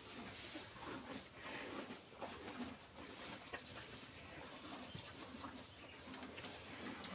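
Cattle tearing at and chewing cut grass in a feed trough: irregular rustling and crunching.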